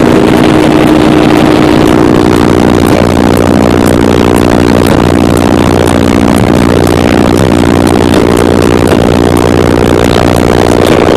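Car-audio subwoofers in a Scion tC playing deep bass at extreme volume, steady and distorted, with the recording overloaded. The air pressure from the bass blows hair upward out of the open window.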